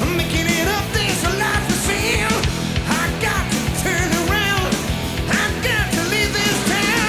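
Hard rock music: electric guitar with bass and drums keeping a steady driving beat, with bending pitched lines over the top.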